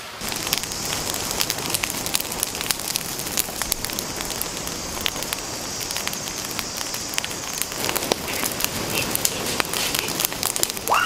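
Open fire of dry leaves and sticks burning, crackling steadily with many quick sharp snaps and pops.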